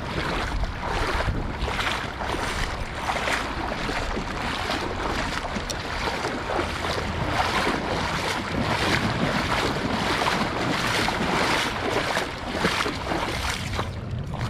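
Wading boots sloshing and splashing through shallow creek water at a steady walking pace, about two steps a second, as a person wades toward the bank.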